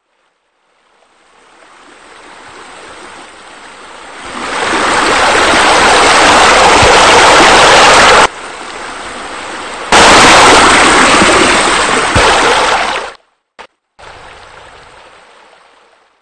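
Rushing water of a pool water feature, a steady noisy rush. It fades in, swells loud, drops away for about two seconds in the middle and comes back. It then cuts off abruptly and ends on a quieter stretch that fades out.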